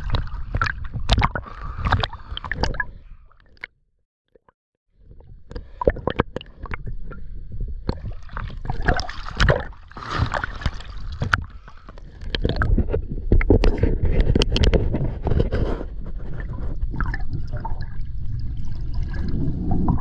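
Water sloshing and splashing against a camera held at the waterline, gurgling as it dips under the surface. The sound drops out completely for about a second, around four seconds in.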